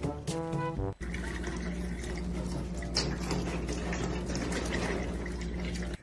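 Countertop water dispenser pouring a stream of water into a glass, starting about a second in, with a steady low hum under the pouring. Before that there is a moment of music.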